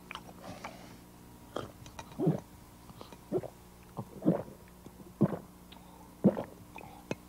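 Messy eating noises from a creature puppet eating food: short chomping and smacking bursts, about one a second, over a faint steady hum.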